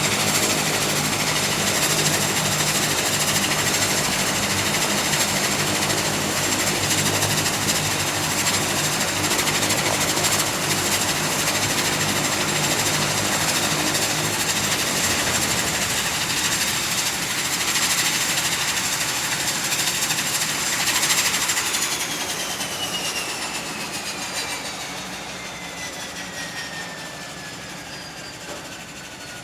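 Airplane engines at full power during takeoff: a loud, steady rush with a high whine, which begins to fall in pitch about 21 seconds in as the plane passes, then fades away.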